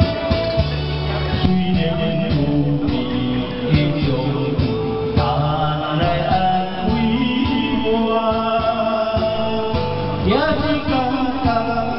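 Music with a male singing voice over a steady beat and bass.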